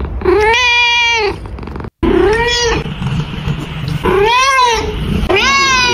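Cat meowing four times, each meow rising then falling in pitch. The first meow is the longest, and there is a momentary dropout in the sound about two seconds in.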